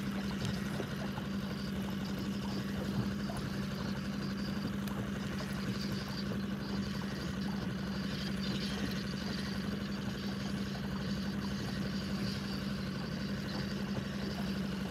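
Outboard motor of an inflatable boat running steadily at slow trolling speed, an even low hum with no change in pitch.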